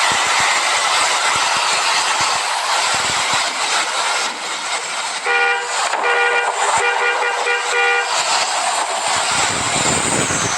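A bus horn sounding several notes at once, blown in three blasts starting about five seconds in, the last one broken into quick pulses, over the steady rush of a passing bus.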